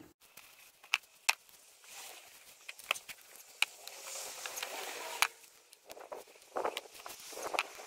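Gloved hands breaking up a clump of soil and roots to pick out oca tubers: rustling and crumbling, with scattered sharp clicks.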